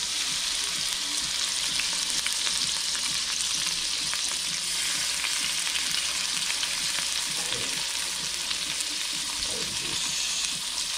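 Winter flounder fillet frying in hot butter in a stainless steel pan: a steady sizzle with small crackles.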